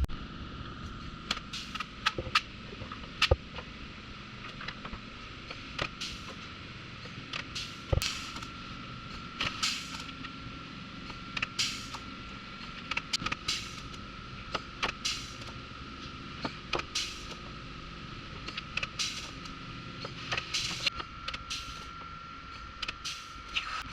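Resistance spot welder fusing the new rear body panel to the car body: a run of short, sharp crackling bursts at irregular intervals, some close together, over a steady faint high whine.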